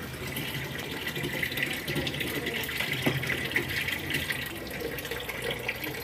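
Water trickling and splashing steadily at a twin-tub washing machine.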